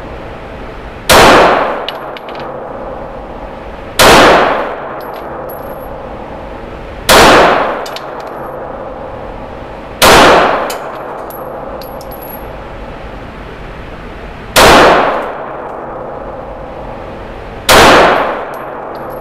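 Glock G19 9mm pistol fired six single shots in slow, aimed fire, one about every three seconds. Each shot rings off the walls of the indoor range.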